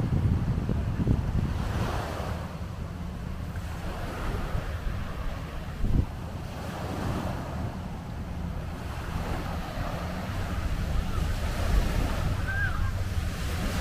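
Wind buffeting the microphone over small waves washing onto a sandy beach. A brief knock about halfway through.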